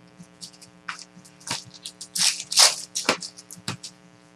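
Crackling and rustling of trading-card pack wrappers and cards being handled, in irregular short crinkles with the loudest about halfway through, over a faint steady electrical hum.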